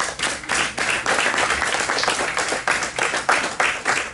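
Audience applauding, many hands clapping at once after a speaker finishes, thinning slightly at the very end.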